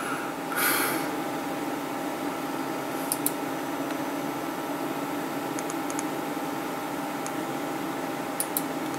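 Steady whir of a desktop PC's cooling fans with a faint steady tone, and a few light computer-mouse clicks about three seconds in, around six seconds and near the end.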